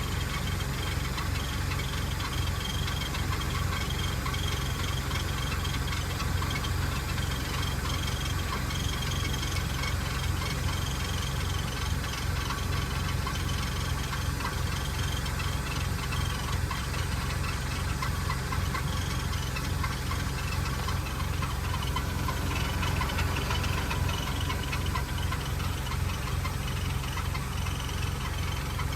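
Engine of a Toyota Camroad-based camper idling with a steady, rhythmic knocking: the abnormal noise that the owner is unsure is harmless.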